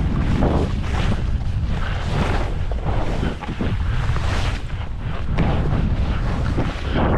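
Wind buffeting the microphone of a skier moving downhill, with skis repeatedly hissing and scraping over soft spring snow as they turn.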